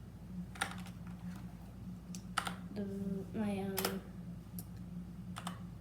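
Single keys pressed one at a time on a mechanical keyboard: about six separate, sharp clacks with gaps between them, over a steady low hum.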